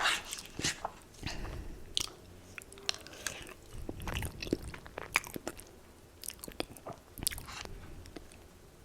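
Close-miked bites and chewing of crispy Popeyes fried chicken, the breading crunching in many sharp, irregular crackles that thin out near the end.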